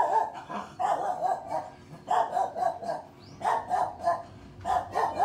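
A dog barking repeatedly, in short bouts of a few barks each, roughly every second or so.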